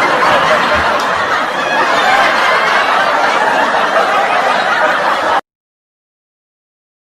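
A crowd laughing together, a canned laugh-track sound effect, which cuts off suddenly a little over five seconds in.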